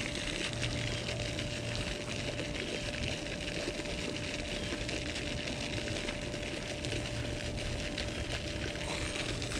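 Steady hiss of a pond fountain's spray falling on the water, with a faint steady hum underneath.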